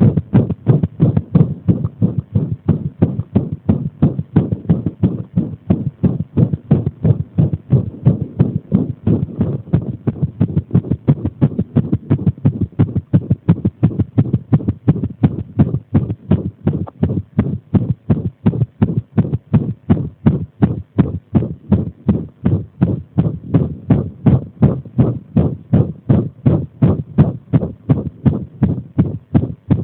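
Amplified human heartbeat: a continuous run of short, low thumps, several a second. The uploader presents it as an arrhythmia brought on by applying pressure.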